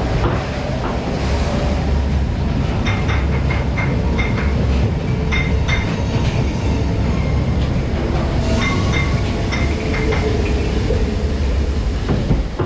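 Steady low rumble of a log-flume boat and its ride machinery moving through an enclosed dark section of the ride, with short high clicks and brief tones now and then.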